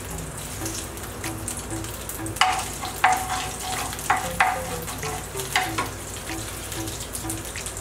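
Panch phoron seeds sizzling and crackling in hot mustard oil in a frying pan while being stirred with a wooden spatula. Several sharp clicks come between about two and six seconds in.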